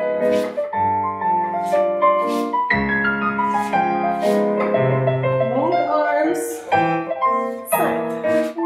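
Piano accompaniment for a ballet barre exercise, playing a steady run of notes and chords.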